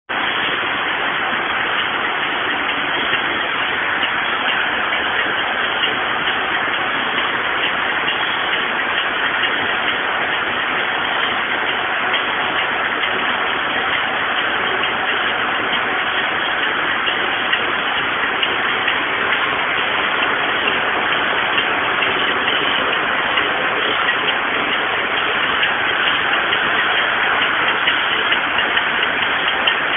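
Circular knitting machine running at speed as it knits tubular knit fabric: a steady, dense clatter of many fine ticks from the needles and cams.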